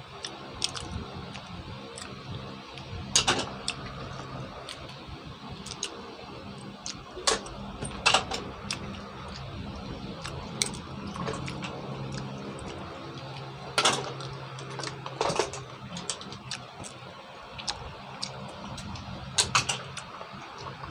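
Green mussel shells clicking and clinking against one another and against a stainless steel bowl as they are picked out and pried open by hand. The sharp clicks come scattered and irregular, over a steady low hum.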